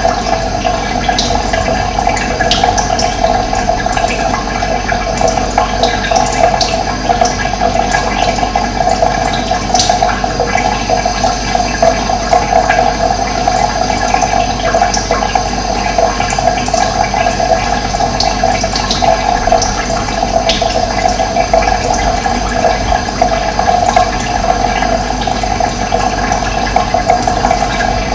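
Running water making a steady, loud rushing and gurgling, with scattered short, high bird chirps over it.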